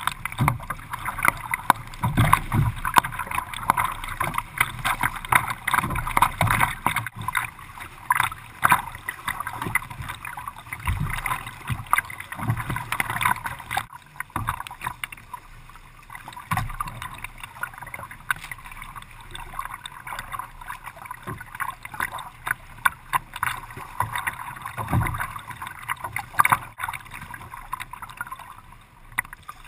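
Choppy water splashing and slapping against a kayak's hull as it is paddled, an irregular continuous wash full of small sharp splashes with occasional low knocks.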